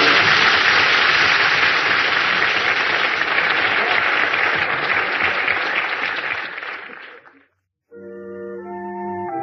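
Studio audience applauding, dying away about seven seconds in. After a brief silence, a scene-change music bridge starts near the end.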